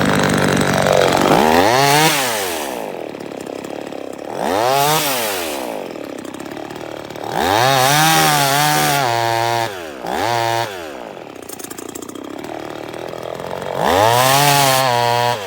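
NEO-TEC 25.4cc two-stroke top-handle chainsaw engine revved up and let fall back to idle five times, each rev a rising then falling whine, with idling in between.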